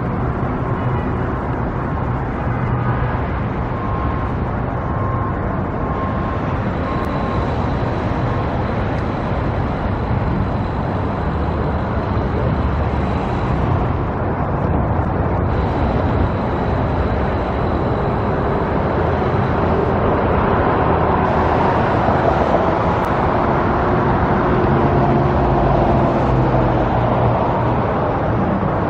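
A car driving with steady road and engine noise.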